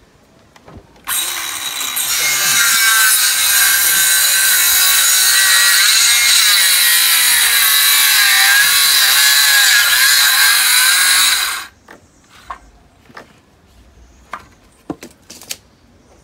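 Handheld circular saw cutting through a wooden board. The motor starts about a second in and runs loud and steady through the cut, its pitch dipping and wavering under load towards the end, then stops sharply; a few light knocks follow.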